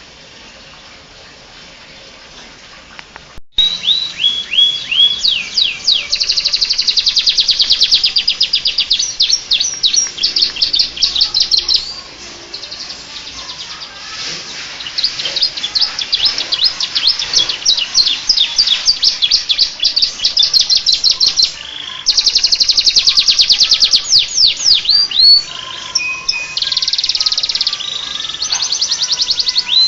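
Domestic canary singing: long fast trills and runs of downward-sweeping notes, a song stuffed with phrases copied from the bar-winged prinia (ciblek). The song starts about three and a half seconds in after a faint quiet stretch.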